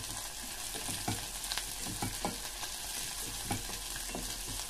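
Chopped onion and garlic sizzling in hot oil in a pot as they are sautéed until soft, with a steady hiss. A wooden spatula stirs them, scraping and knocking against the pot several times a second at an uneven pace.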